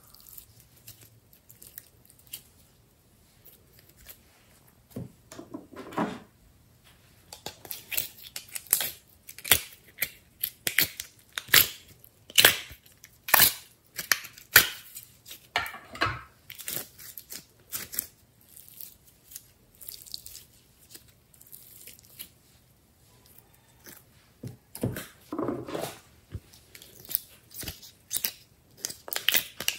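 Slime being squeezed, stretched and pulled out of plastic containers by hand, giving irregular sticky crackles and pops in clusters. The crackles are quieter near the start and again about two-thirds of the way through.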